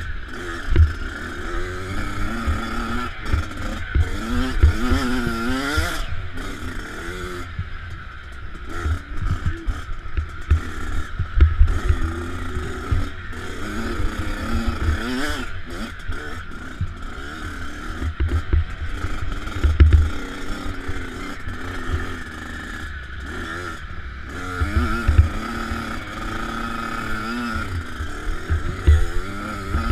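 Motocross bike engine revving up and falling back again and again as it is ridden hard over a dirt track, heard from a helmet-mounted camera, with frequent low thumps from wind and bumps on the microphone.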